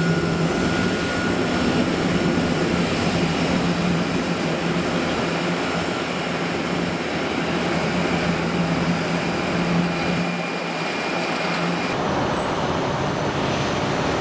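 Boeing 777's twin jet engines running at taxi power: a steady rumble and hiss with a faint whine, which changes abruptly near the end.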